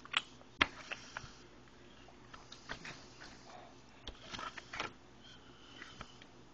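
Toddler eating noodles with his fingers: scattered short, quiet mouth smacks and clicks, with a small cluster of them a little past the middle.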